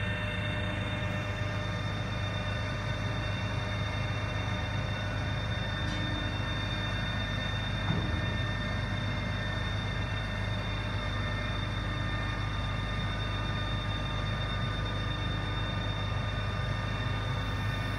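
Mobile crane's diesel engine running steadily while it hoists a heavy dome, a constant low hum with a steady high whine over it. One small knock about halfway through.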